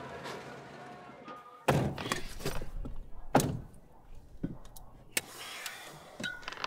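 Car doors shutting: a heavy thunk a little under two seconds in and another about halfway through, followed by smaller clicks and knocks.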